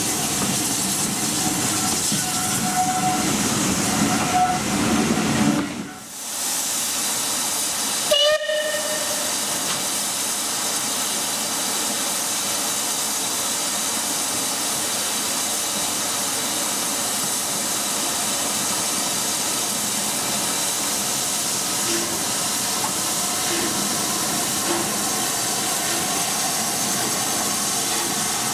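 Bulleid West Country class Pacific No. 34027 'Taw Valley' letting off a steady hiss of steam, with a short blast of its whistle about eight seconds in.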